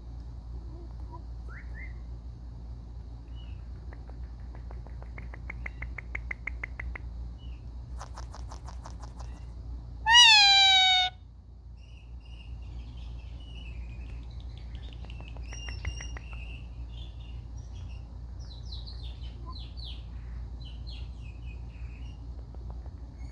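Indian ringneck parakeet vocalising: soft chatter and rapid trilled clicking, with one loud squawk about ten seconds in that lasts about a second and falls in pitch. A faint steady low hum runs underneath.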